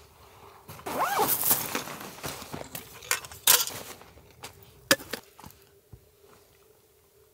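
Rummaging through a hiking backpack: nylon pack fabric rustling and rasping as gear is pulled out, about a second in, followed by several sharp clicks and knocks of gear being handled.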